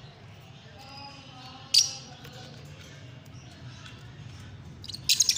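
Lovebirds calling: one loud, sharp, high shriek about two seconds in, then a quick run of shrill chirps near the end, over a low steady hum.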